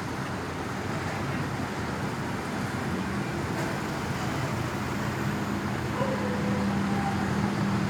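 Steady road traffic noise with a low engine hum that grows a little stronger about five seconds in.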